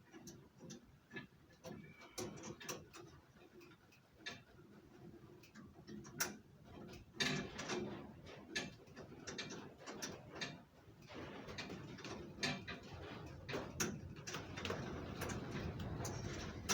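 Irregular small metallic clicks and taps as a brake pipe and its fitting are worked into place under a Land Rover 109 Series 3, with rustling that grows denser in the second half.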